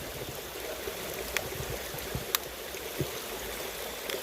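River water running steadily, with three short sharp clicks over it.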